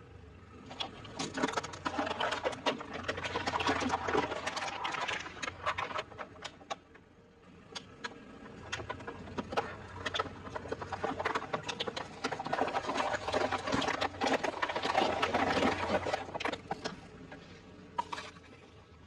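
Crushing: irregular crunching and cracking that swells into dense bouts and eases off, with sharp snaps throughout, over a steady low hum.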